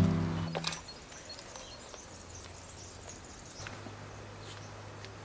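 Background music cuts off within the first second. Then comes faint outdoor background noise, with scattered faint high chirps and a faint low hum.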